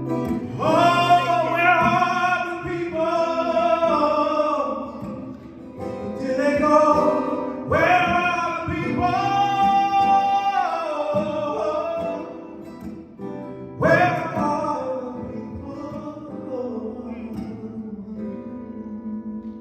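Live music: a singer sings long, held, wavering phrases over guitar accompaniment, with short breaks between phrases.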